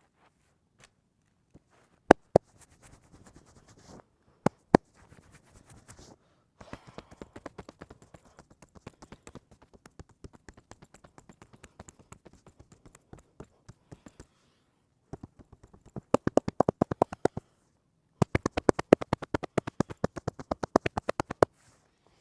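Hands tapping and slapping during a head and back massage: a few single sharp slaps, a long run of lighter quick taps, then two fast, even runs of rapid tapping near the end.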